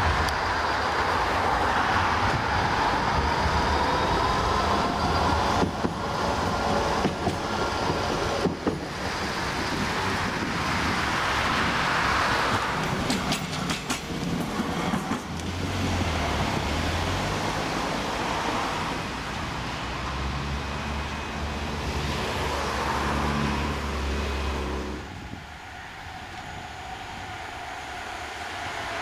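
Bombardier Flexity Swift trams running on rail: an electric whine that rises and falls in pitch over wheel and rail noise, with a run of sharp clicks about halfway through. The sound drops away noticeably near the end.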